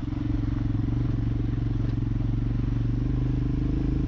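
Motorcycle engine running steadily while riding, a low, even engine note with a fast regular pulse.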